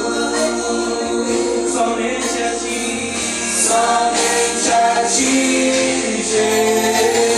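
Worship band and congregation singing a Portuguese gospel praise song, with held sung notes over the band's accompaniment.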